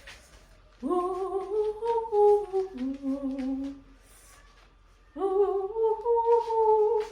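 A woman humming a melody in two long phrases, the first starting about a second in and the second about five seconds in.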